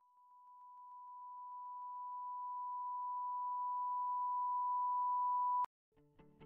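A steady, pure high electronic tone, like a test tone, growing gradually louder for about five and a half seconds and then cutting off with a click. Music with plucked notes starts about half a second later.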